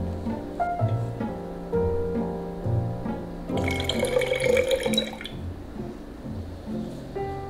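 Background music with plucked notes throughout; about three and a half seconds in, cold-steeped tea is poured in a thin stream into a glass carafe of milk, splashing for under two seconds.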